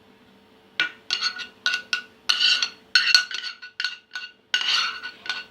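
A metal spoon clinking and scraping against metal cookware: a quick run of ringing strikes starting about a second in.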